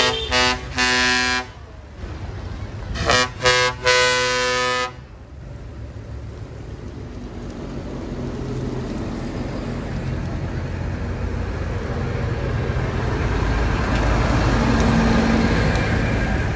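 A vehicle horn toots five short blasts: two at the start, the second longer, and three more about three seconds in. After that, a steady low engine rumble grows louder as a tractor draws near.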